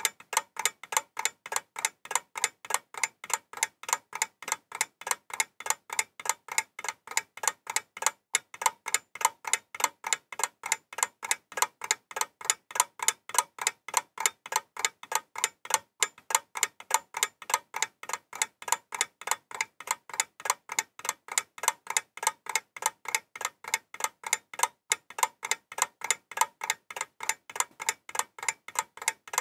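Steady, evenly spaced ticking at about four ticks a second, unbroken throughout.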